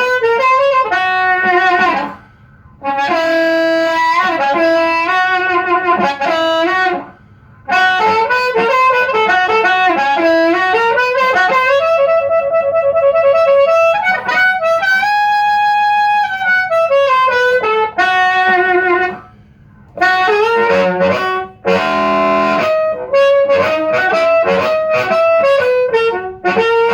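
Amplified harmonica played through a vintage Astatic JT-30 bullet microphone with its original MC127 ceramic element into an amplifier. It plays phrases of single notes and chords with a few short breaks, and some notes are bent in pitch.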